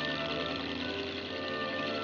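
Horror film score: several sustained tones held and overlapping, changing pitch slowly, over a steady hiss.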